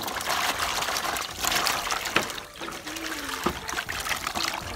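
Water pouring and trickling into a plastic basin and splashing as hands rub cut yardlong beans clean in it. The pouring is loudest for the first two seconds or so, then it eases into quieter sloshing with a few small knocks.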